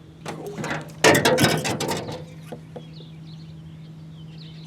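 Fishing reel giving a loud burst of rapid ratcheting clicks for about a second, starting about a second in, over a steady low hum.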